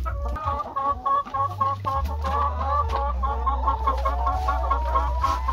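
A flock of brown laying hens clucking and calling over one another in quick, overlapping short calls, with one drawn-out, slightly rising call near the end. A low steady rumble runs underneath.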